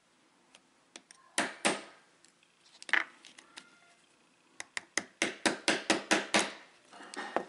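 Small watch-repair hammer's plastic (Teflon) face tapping a pin into a metal watch band link held in a plastic band holder block, driving the pin home flush. A few separate taps come first, then a quick run of about ten light taps, about five a second, then a couple more near the end.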